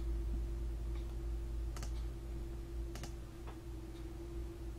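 About five soft, irregularly spaced computer clicks over a steady low electrical hum with a faint steady tone.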